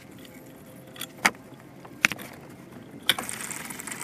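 A few sharp metallic clinks of hand tools and fittings as the lower radiator hose and cooler line are worked loose. About three seconds in, a steady hiss begins as coolant starts running out of the radiator.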